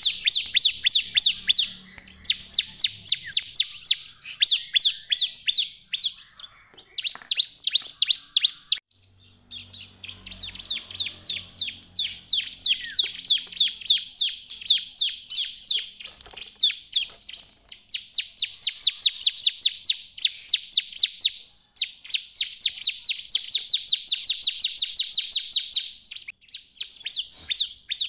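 Ciblek, a caged prinia, singing in its full 'gacor' song: rapid runs of sharp, high chirps, about ten a second. Each run lasts one to four seconds, with short breaks between runs.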